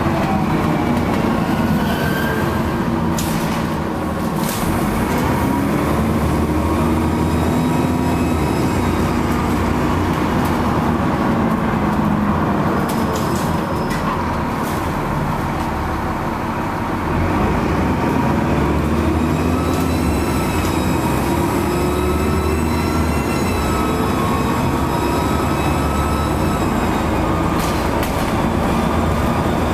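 Inside a Trident double-decker bus under way: the diesel engine and driveline run with pitch rising and falling as it pulls away and slows, over a high whine from the turbocharger's whistle. The sound dips briefly twice.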